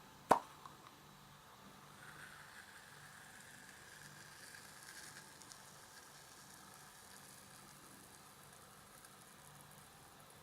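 Slime being played with by hand, a faint crackling hiss. A single sharp click sounds about a third of a second in.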